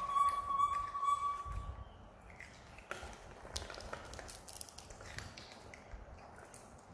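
A young macaque giving one long, high, steady whimpering call that stops after about two seconds. The rest is quieter small clicks and taps as the monkeys pick pomegranate seeds from a plastic plate.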